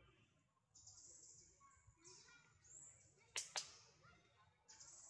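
Near-silent outdoor background with a faint high hiss that comes and goes, broken just over three seconds in by two sharp clicks a fifth of a second apart.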